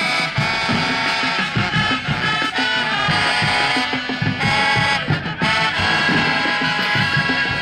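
High school marching band playing: brass horns sounding a tune in held notes over the drumline's regular beat.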